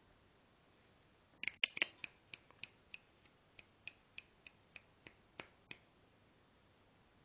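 A person making sharp clicking sounds to catch the kittens' attention: a quick burst of clicks about a second and a half in, then single clicks evenly at about three a second for some four seconds.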